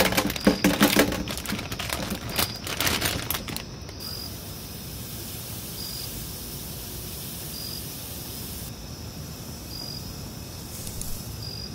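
Baby potatoes tumbling out of a bag into a stainless-steel colander: a quick clatter of knocks and metallic rattles that stops about three and a half seconds in. After that only a faint steady hiss remains, with a short high chirp repeating about every two seconds.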